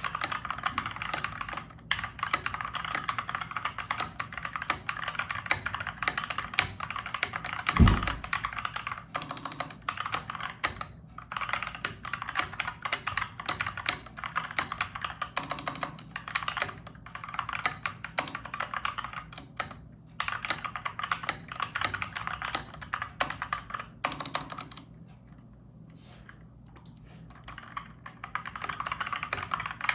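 Dierya DK61E mechanical keyboard with Gateron Brown tactile switches, typed on quickly and steadily as a stream of dense, irregular key clacks. A single loud low thump comes about 8 seconds in, and the typing stops briefly about 25 seconds in before resuming.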